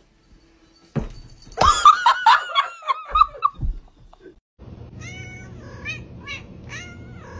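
A knock, then a quick run of about ten high calls that rise and fall, likely a dog's yelps. After a cut, a tabby cat makes a quick series of about six short meows.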